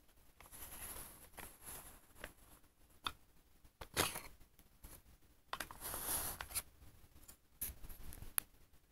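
Handling noise from the small wooden sign base and acrylic panel being touched and moved: scattered light clicks and short rustles. A sharper knock about four seconds in and a longer scraping rustle around six seconds in are the loudest sounds.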